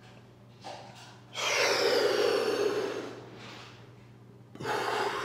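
A person taking deep, forceful breaths during cat-cow diaphragmatic breathing: two loud breaths, each about a second and a half long, the first about a second and a half in and the second near the end.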